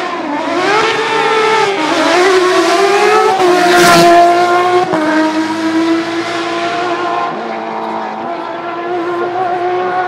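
Porsche 997 GT3 rally car's flat-six engine revving hard up through the gears as it approaches, its note rising, breaking at a shift and rising again. It is loudest about four seconds in, with a sharp crack, then settles to a steadier note as it moves away.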